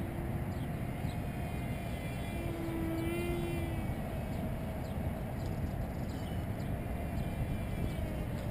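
Distant whine of a small RC jet's A1510 2200kv brushless motor and cut-down 5-inch propeller, holding a steady pitch as the plane flies overhead, under a low rumble of wind on the microphone. A brief higher-pitched hum rises above it about two and a half seconds in.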